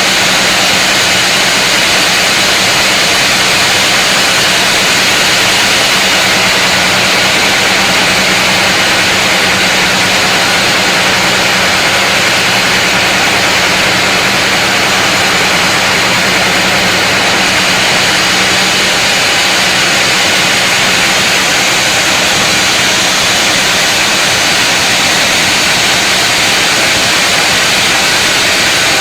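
Sawmill saw cutting through a large mahogany log: a loud, steady running noise with a constant low hum underneath.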